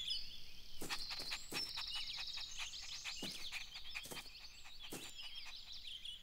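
Birds chirping and twittering as a backyard ambience, with a run of light, quick taps through the middle.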